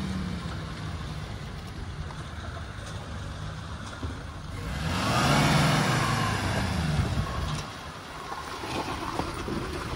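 Maruti Suzuki Gypsy engine revving as it climbs a rough gravel track. It swells to its loudest about five seconds in, with a rush of tyre noise over the stones, then eases off.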